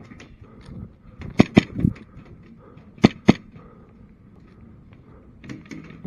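Airsoft pistol firing four sharp shots in two quick pairs, the first pair about one and a half seconds in and the second about three seconds in.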